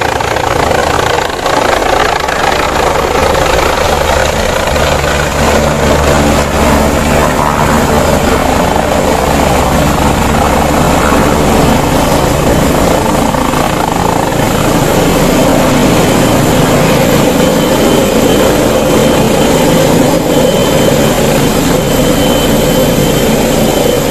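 Police helicopter's rotor and turbine engine running loud and steady as it hovers down and touches down on its skids.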